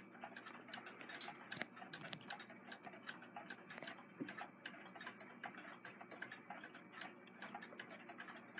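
Faint, irregular light clicking from a Singer 66 lock-stitch sewing machine's mechanism as its balance wheel is turned over slowly by hand, the needle and take-up arm working through a stitch.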